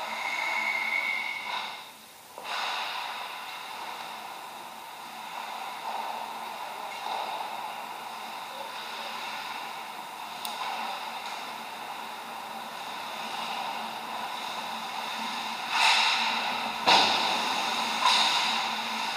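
Ice hockey rink during play: skates scraping and hissing on the ice in a steady wash of noise. A brief steady high tone in the first second or so, and three sharp knocks near the end, about a second apart.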